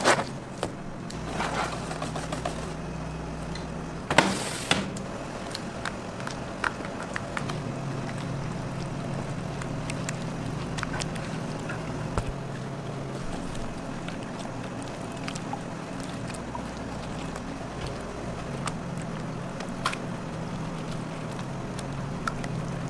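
Bakery kitchen ambience: a steady low machine hum with scattered clicks and knocks, the loudest a sharp knock about four seconds in.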